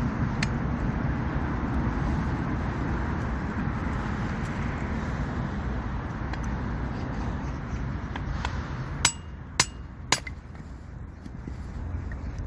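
A steady background rumble, then, near the end, three sharp metal strikes about half a second apart, each with a brief ring: a hammer striking a portable firewood splitter.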